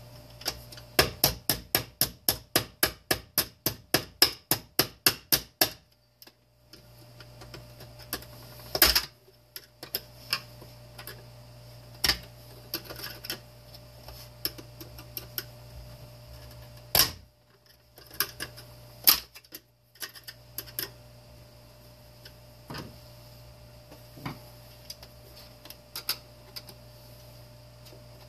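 Hand tools working on a space heater's parts while it is being taken apart: a quick, even run of clicks for about five seconds, then scattered clicks and knocks.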